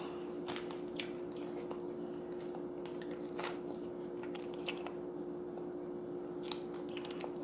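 A person chewing and biting into a bologna sandwich, with soft, wet mouth clicks and smacks coming irregularly every second or so, over a steady hum.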